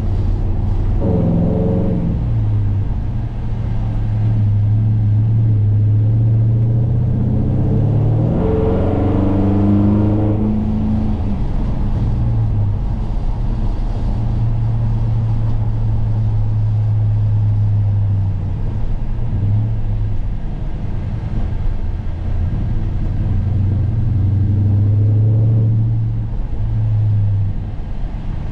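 Gen 3 Ford Coyote 5.0 litre V8 in a pickup running on the road: a steady low drone while cruising, revs dropping about a second in, then rising in a quick pull about eight seconds in before falling back, with smaller swells in engine speed later on.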